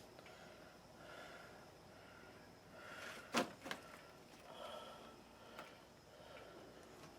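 Quiet handling noises with one sharp knock about halfway through, followed at once by a lighter one.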